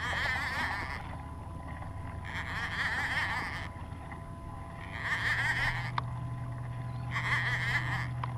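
Fishing reel whirring in four surges about a second long each, with short pauses between, while a hooked tuna is being fought from the kayak. A low steady hum grows louder about five seconds in, and there is a single sharp tick near six seconds.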